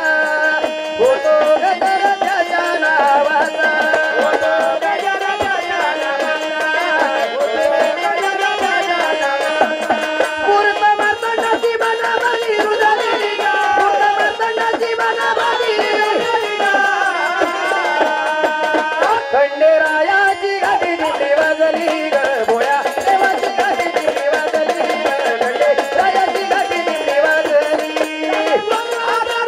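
Marathi gondhal folk music: a melody of held, gliding notes over steady hand-drum percussion with a rattle.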